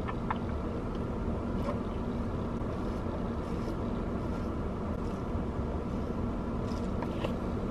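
Steady hum and rush inside a parked car's cabin, with a faint steady drone under it, and a few faint sips through a drinking straw.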